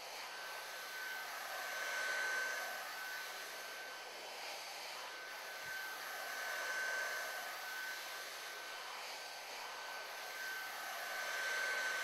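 Hot air heat gun blowing steadily with a thin, high fan whine over its rushing air, swelling and fading three times as it is moved around the part. It is post-heating a heat-shrink molded cable boot at the cable end to set its /86 precoat adhesive.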